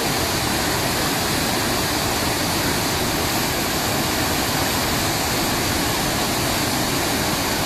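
Swollen, muddy floodwater rushing past in a fast torrent: a steady, unbroken rush of water.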